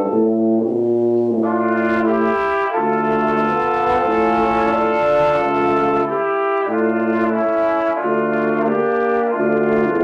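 Brass duet, a trumpet over a lower brass instrument, playing a slow piece in long held notes with the two parts sounding together.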